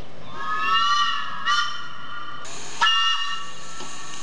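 Whistle of a 10.25-inch gauge 2-4-2T steam tank locomotive: a blast of about two seconds, sounding several notes together, then a short second blast, over the steady noise of the approaching train.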